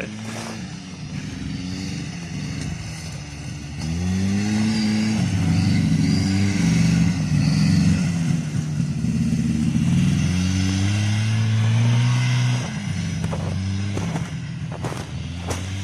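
Buran snowmobile's two-stroke engine running. About four seconds in it revs up and runs hard with the pitch rising and falling, then eases off near the end.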